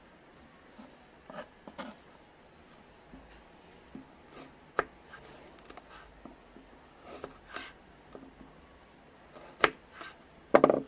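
A kitchen knife slicing raw carrots on a wooden cutting board: short, irregularly spaced knocks as the blade cuts through and strikes the board. The loudest knocks come near the end.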